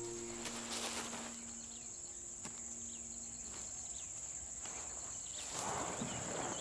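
Steady high-pitched drone of insects, with a few faint short chirps over it.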